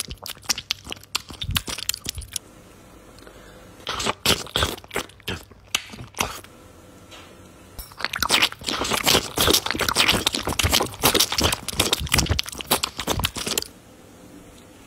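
Close-up handwork on a laptop: three bursts of rapid, scratchy clicking and scraping. The first is short, the second starts about four seconds in, and the longest runs from about eight seconds in to near the end.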